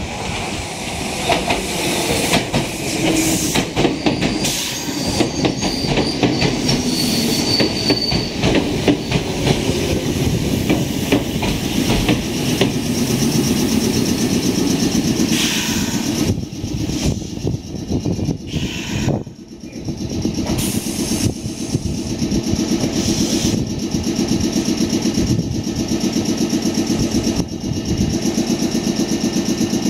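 Meitetsu 6500 series electric train running into the station, its wheels clicking over rail joints, with a high squeal a few seconds in as it slows. It comes to a stop about 19 seconds in, and after that its equipment hums steadily while it stands at the platform.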